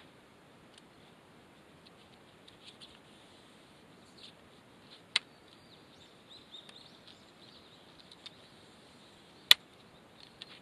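Quiet mountainside ambience with faint bird chirps, broken by two sharp clicks: one about five seconds in and a louder one near the end.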